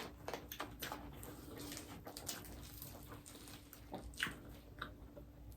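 Faint close-up chewing and mouth sounds: scattered soft smacks and clicks of someone eating a toasted grinder sandwich.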